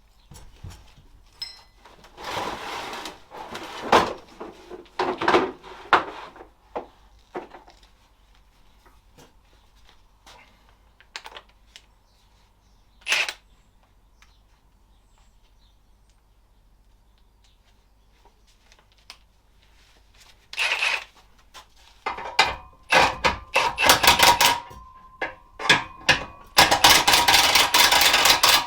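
Metal parts being handled: clattering, knocking and scraping in scattered bursts, with a single sharp click in the middle and the busiest, most continuous clatter in the last several seconds.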